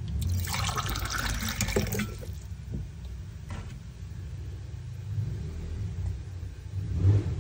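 Kitchen tap water running into a stainless-steel sink for about two seconds, then stopping, over a steady low rumble; a single thump near the end.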